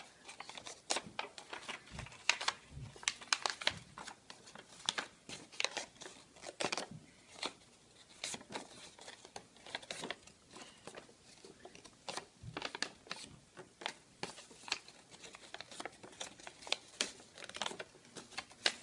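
Folded white paper being creased and pressed along its accordion pleats by hand, giving irregular crinkling and sharp paper crackles throughout.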